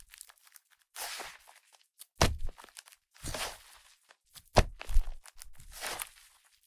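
Fluffy clay slime (Yoda clay) being squished and pressed by hand: three soft sizzling, crackling bursts as air is worked through it, alternating with sharp, dull thumps as it is pressed down against the table.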